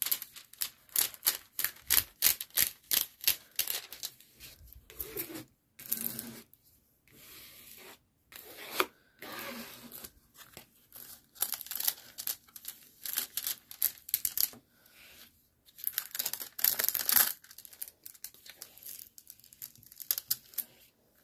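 Plastic scraper tool rubbed in quick, irregular strokes over a diamond painting canvas and its clear plastic cover film, the film crinkling and scraping with short pauses between passes. The canvas is being smoothed flat so it relaxes after being rolled.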